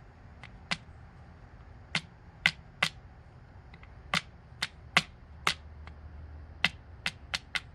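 Small sharp metallic clicks and taps, about a dozen at irregular intervals, from tools working the pins out of an American Lock 1100 padlock during disassembly.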